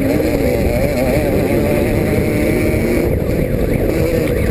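Class 5 off-road race car's engine running hard, its pitch wavering up and down with the throttle over a dense low rumble.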